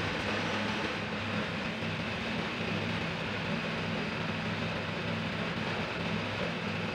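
Petrol-engine air compressor running steadily, with the hiss of compressed air from a gravity-feed paint spray gun.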